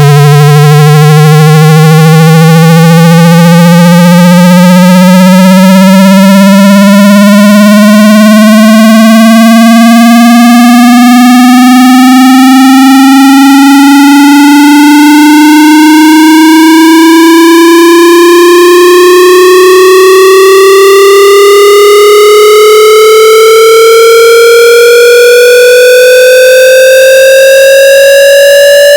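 Loud, buzzy synthesized test tone sweeping slowly and steadily upward in pitch, climbing about two octaves.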